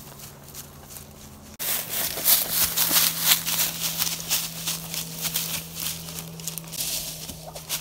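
Running footsteps crunching through dry grass and dead leaves, a rapid crackling that starts suddenly about a second and a half in after a quieter stretch.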